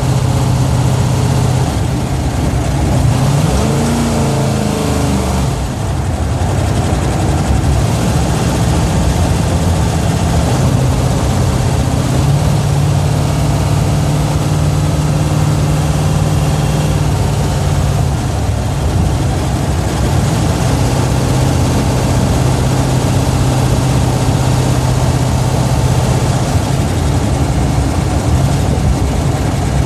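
The Plymouth Duster's 440 cubic-inch big-block V8 runs while driving, heard from inside the cabin. Its low, steady note changes in strength a few times as the throttle varies.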